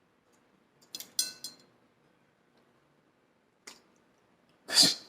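Cutlery clinking on a plate at a meal: a few sharp metallic clicks with a brief ring about a second in, one more click a little before four seconds, and a louder short noise near the end.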